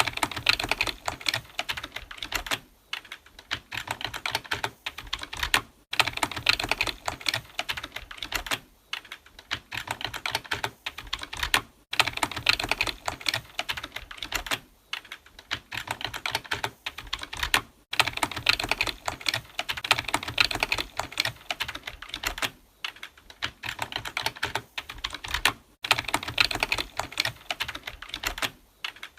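Fast typing on a computer keyboard: quick runs of keystroke clicks broken by brief pauses about every three seconds.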